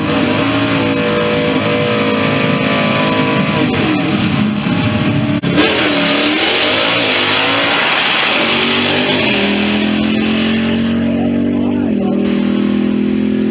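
Drag-racing Ford V8 at full throttle, launching off the start line about five seconds in and accelerating away down the strip. Its note climbs slowly and steps once near the end as it shifts gear.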